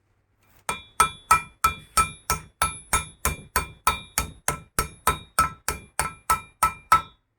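Steady hammer blows on metal, about three a second, each with a ringing clang. The hammer is striking the old bearing, used as a driver, to tap a new crankshaft pilot bearing into its bore in the end of a VAZ 'classic' crankshaft.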